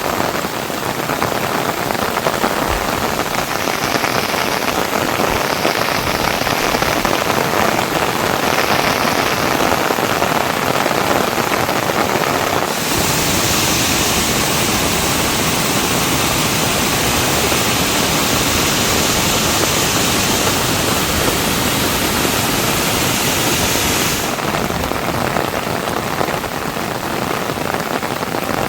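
Heavy rain falling steadily as a dense, even hiss. For about eleven seconds in the middle the sound turns brighter and hissier, switching in and out abruptly.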